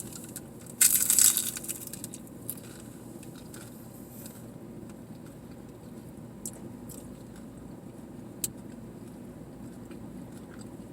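A crunchy bite into a taco about a second in, followed by scattered small mouth clicks over a low steady hum.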